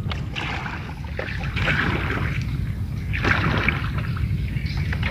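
Small boat pushing through dense floating water weeds: irregular swishing and scraping of plants along the hull, over a steady low rumble.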